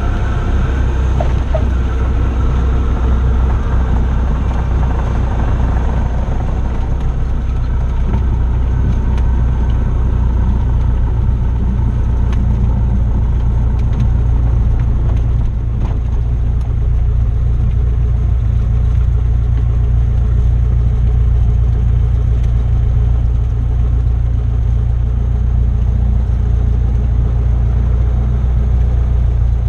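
Cessna 172's piston engine and propeller running steadily, heard from inside the cockpit as the plane rolls along the ground: a loud, even, low drone.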